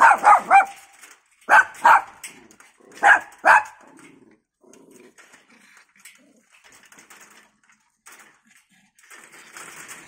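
Several small dogs barking in short, high yaps, in quick groups of two or three, through the first four seconds; after that the barking stops and only faint, scattered sounds remain.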